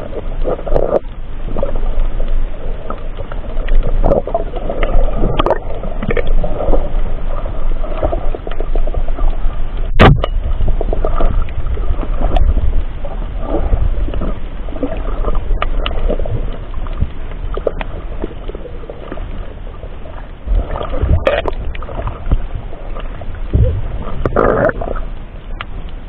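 Underwater water noise heard through an action camera's housing as a spearfisher swims: a steady rushing and gurgling with low rumble and scattered sharp clicks, one louder click about ten seconds in.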